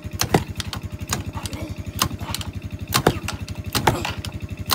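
Quad bike (ATV) engine idling with a steady, fast putter, with several sharp clicks and knocks over it.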